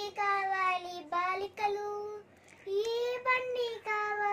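A young girl singing solo without accompaniment: two sung phrases of long held notes, with a short break between them about two seconds in.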